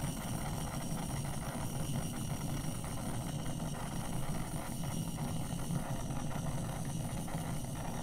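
Handheld jet-flame torch burning with a steady rushing hiss.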